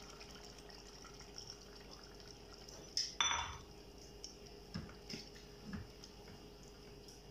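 Serving spoon knocking and scraping in a steel cooking pot as curry is dished out, with one sharp metallic clatter about three seconds in and a few lighter knocks after it.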